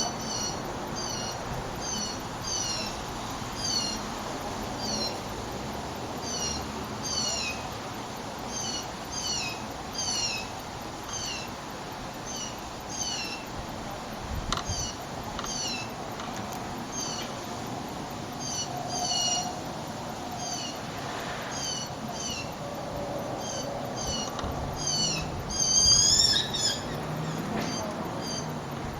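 Blue jays calling: a steady series of short, high, downward-sliding calls, about one or two a second, with a louder cluster near the end.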